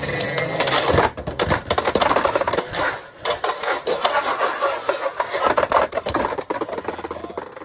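Two Beyblade X tops, Scorpio Spear 9-60 Gear Point and Nightmare 9-60 Free Ball, spinning and colliding in a plastic stadium: a whir with rapid clicks and clacks of metal blades striking and grinding along the toothed rail. The clashing ends near the end as Nightmare is burst apart after a couple of hits.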